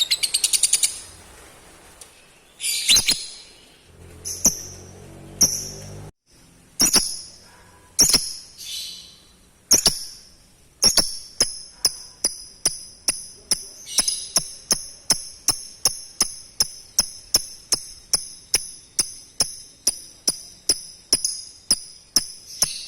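Lovebird chattering. A fast trill ends in the first second, then comes a string of separate high chirps. From about halfway, a steady jingling beat sets in, about three sharp ringing strikes a second.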